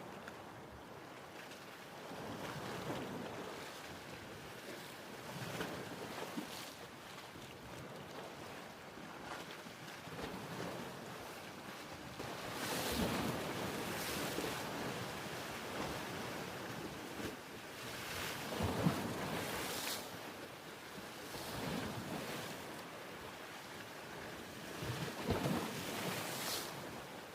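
Ocean surf: waves breaking and washing in, swelling and ebbing every few seconds, with a few sharper crashes.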